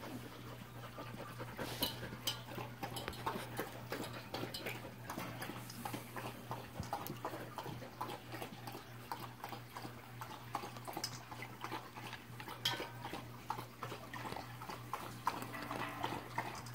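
Samoyed puppies moving about and playing: a steady string of small clicks and scuffles, over a constant low hum.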